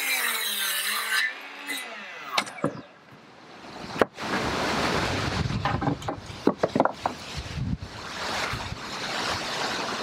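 DeWalt sliding compound miter saw whining through a cut in a wooden baluster board, its motor winding down a second or so in. Then a sharp knock and several seconds of wood rubbing and knocking as boards are handled on the saw table.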